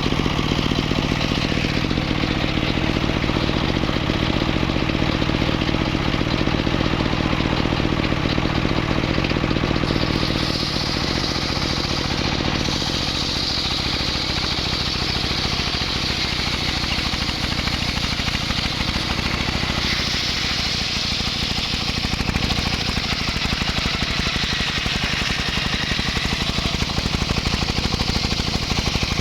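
Engine-driven wood saw running steadily, cutting mahogany timber. About ten seconds in the sound changes: the low engine tones drop back and a strong hiss comes in.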